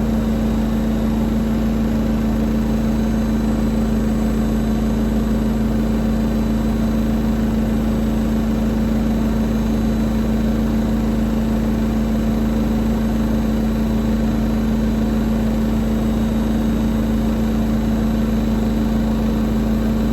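Washing machine drum on its fastest spin, about 1610 RPM on a 1600 RPM model: a loud, steady hum with a strong even tone and fainter tones above it, unchanging throughout.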